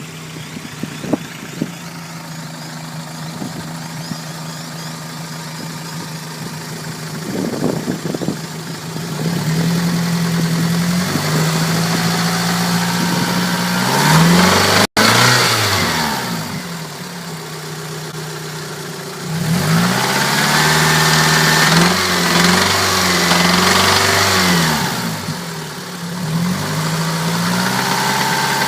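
1992 Toyota Celica's 5S-FE four-cylinder engine idling with a few sharp clicks, then revved up and down several times. It carries the rattling noise that is being investigated.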